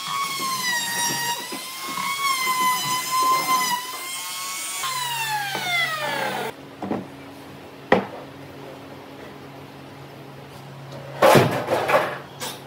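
A handheld electric woodworking tool's motor running with a high, slightly wavering whine, then winding down in falling pitch about five seconds in, leaving a low steady hum. A single click comes near eight seconds, and a clatter of wooden parts knocking comes near the end.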